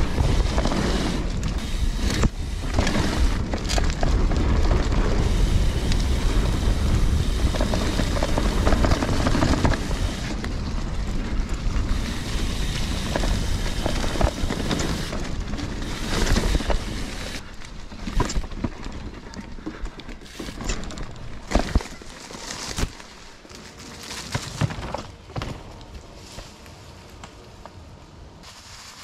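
Trek Fuel EX mountain bike ridden fast down dirt singletrack: wind rumble on the camera microphone and tyre noise, with knocks and rattles of the bike over roots and bumps. The rumble drops off about seventeen seconds in, leaving quieter riding with sharp clatters.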